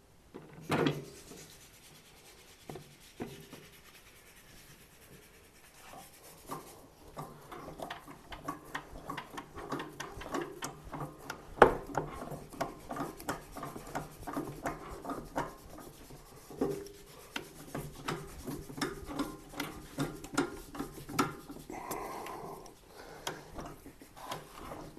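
Stainless steel threaded insert being turned by hand into a maple guitar neck on a drill press: a few knocks, then from about six seconds in a steady run of rubbing, creaking clicks, several a second, with one sharper knock midway.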